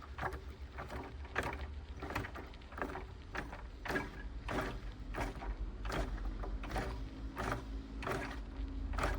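Wilesco D32 model steam engine warming up: condensate gurgling and spitting with the steam through the exhaust pipe into the chimney, in irregular pops about one or two a second over a steady low hum.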